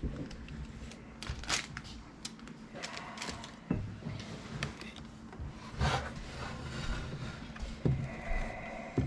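Handling of a resin 3D printer as it is turned over on a bench: a few scattered light knocks and clicks with some scraping, over a faint steady hum.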